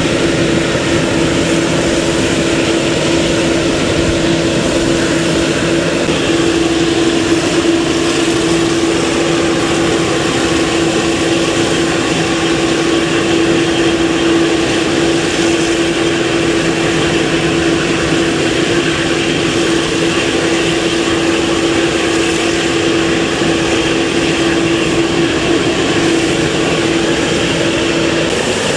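Jet airliner's turbofan engines running, a steady whine over a constant rushing noise; the whine stops near the end.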